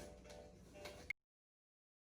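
Near silence: faint room tone with a short click about a second in, after which the sound cuts out completely.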